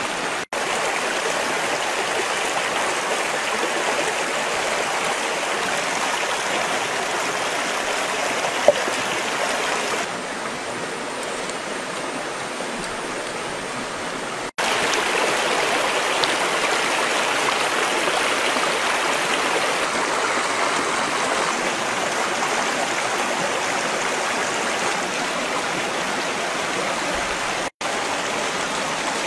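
Steady rushing of a flowing stream. It softens for a few seconds in the middle, then returns louder, with three momentary breaks and one short click about nine seconds in.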